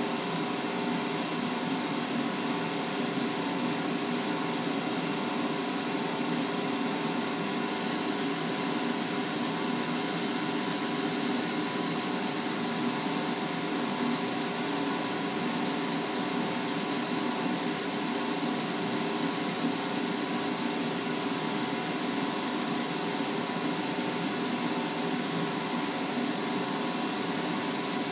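Laser cutter running while it engraves: a steady machine hum with several steady tones over an even hiss.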